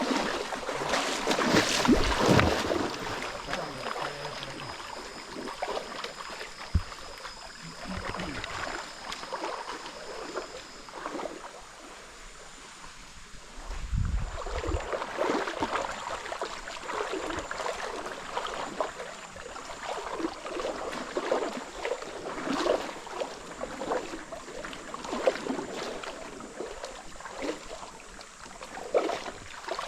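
Water splashing and sloshing in uneven bursts, the sound of moving through a stream, with wind buffeting the microphone now and then, strongest about halfway through.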